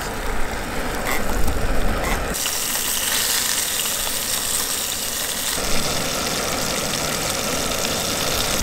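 Pacific mackerel frying in olive oil in a small camp pan, a steady sizzle, with a low rumble in the first couple of seconds.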